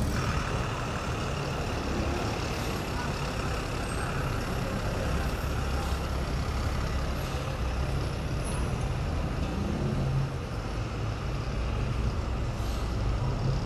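A city bus's engine running close by over steady street traffic noise, a constant low rumble.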